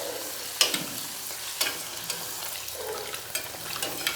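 Pooris deep-frying in hot oil, a steady sizzle, with a few sharp taps of a utensil against the pan.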